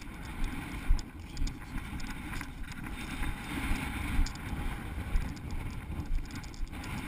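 Wind buffeting the microphone: a low, gusting rumble with uneven surges.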